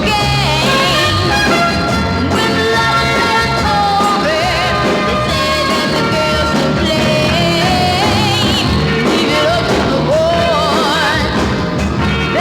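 Northern soul record playing: a lead singer over a full backing band.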